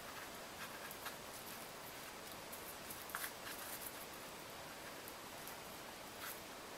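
Faint rustling and a few light ticks as a wire-framed wreath and a thin budded twig are handled and wound around the base, over a steady low hiss.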